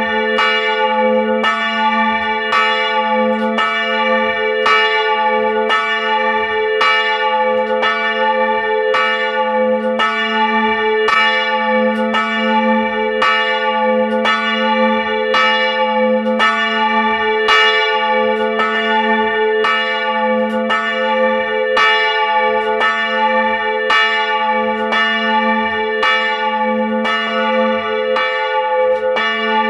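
Two swinging bronze church bells, of about 450 kg and 380 kg, ringing together at full swing, heard close up in the belfry. The clappers strike about one and a half times a second, and each stroke hums on into the next.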